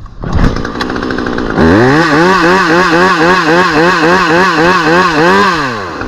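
Petrol top-handle chainsaw starting up and idling, then revved to high speed for about four seconds, its pitch swinging up and down about twice a second, before dropping back to idle near the end.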